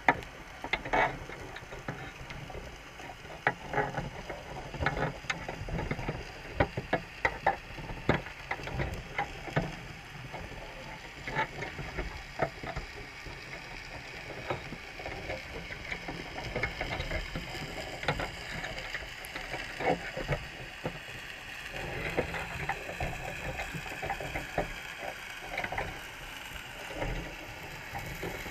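Irregular clicks, taps and scrapes of Dungeness crabs' shells and legs against the wire mesh and each other inside a crab trap, heard muffled through an underwater camera housing over a steady hiss. The clicks come in quick clusters, thickest in the first half.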